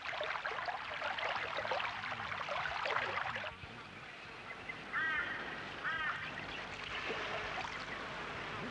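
Fresh water splashing and gurgling as it gushes from a rock spring and is directed into a collapsible water bottle. After a cut, a bird gives two short calls about a second apart.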